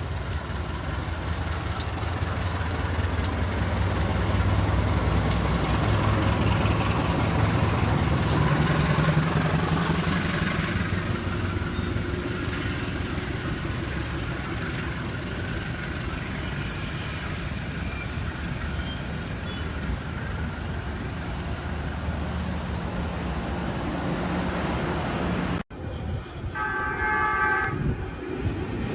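A train running by: a steady low rumble with a deep engine drone that swells over the first ten seconds. After an abrupt cut near the end, a train horn sounds briefly for about two seconds.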